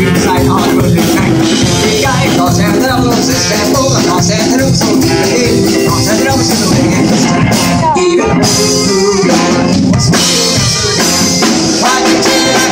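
Live swing band playing, with saxophones and trumpet over a drum beat.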